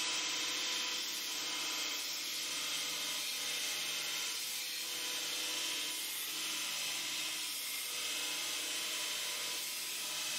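Belt grinder running with a leaf-spring steel knife blade held against the belt to grind its edge bevel: a steady grinding hiss.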